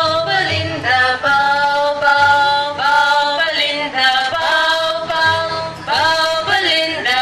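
A song sung in a high voice, in long held notes that move stepwise in pitch, with a low accompaniment underneath.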